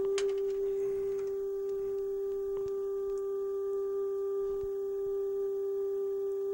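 Steady 400 Hz test tone from an RCA speed-alignment cartridge playing in a Delco T400 8-track player, with faint overtones above it. It is a tape-speed check: the tone should read between 395 and 405 Hz for the player to be in spec.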